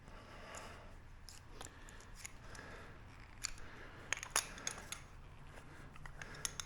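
Light clicks and ticks of wire being fed through and bent by hand, with a few sharper clicks about three to four and a half seconds in.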